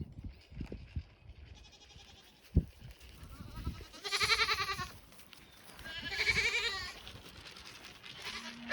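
A goat bleating: two loud, wavering calls about a second apart near the middle, after a fainter one earlier. A single sharp knock comes between them.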